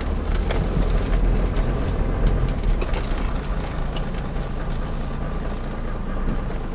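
Cabin noise of a Land Rover driving slowly off-road: a steady low rumble of engine and tyres, with light clicks and rattles from the interior over the bumps.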